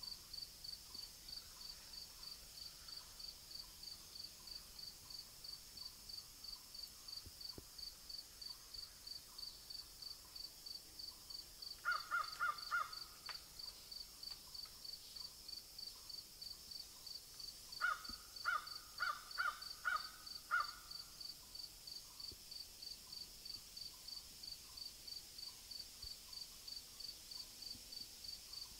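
A crow cawing in two bouts, four caws about twelve seconds in and six more about six seconds later, the loudest sounds here. Under it, an insect chirps steadily at two or three chirps a second.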